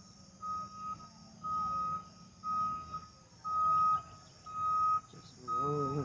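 Vehicle back-up alarm beeping steadily: one high beep of about half a second, once every second.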